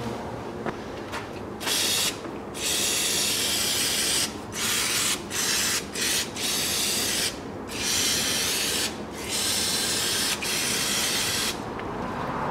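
Aerosol can of carburetor cleaner spraying in about nine hissing bursts, some over a second long with short pauses between, washing gear oil off the gearbox.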